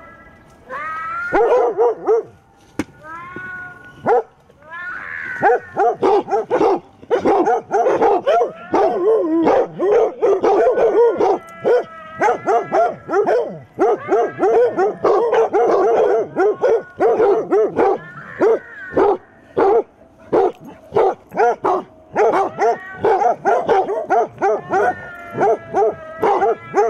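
A pack of basset hounds barking and baying at once, a near-continuous din of overlapping barks and drawn-out howls.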